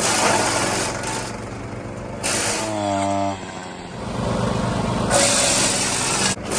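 Small gasoline engines of outdoor power equipment running hard, with a loud grinding hiss, in several short back-to-back cuts that change abruptly.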